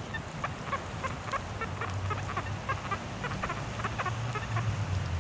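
XP Deus metal detector on its Hot program sounding while the coil is swept: a low grunting iron tone that swells and fades, under many short, high chirps at a few per second. The low tone is the detector's iron signal.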